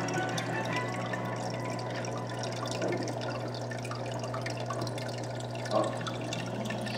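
Aquarium filter running: a steady trickle and splash of water over a constant low hum.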